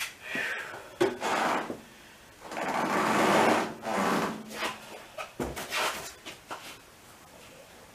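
Scraping and rubbing noises, the longest and loudest about a third of the way in, followed by a few short knocks and clicks: things being slid, dragged and handled in a workshop.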